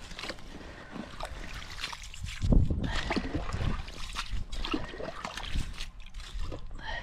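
Slotted ice skimmer scooping slush and ice chips out of a freshly drilled ice-fishing hole: irregular scraping, sloshing and dripping water, with a heavier knock about two and a half seconds in.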